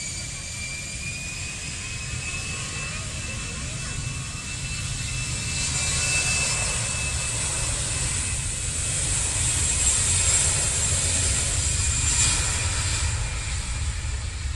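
Airbus A320's twin jet engines at high power as the airliner rolls past on its take-off run: a steady high whine over a low rumble and hiss, growing louder to a peak about ten seconds in and then easing as it moves away.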